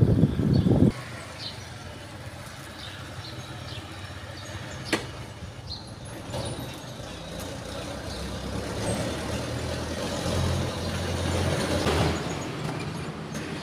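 A motor vehicle engine running steadily at low revs, swelling a little in the second half, over street background noise. A loud low rumble stops sharply about a second in, and there is a single sharp click near the middle.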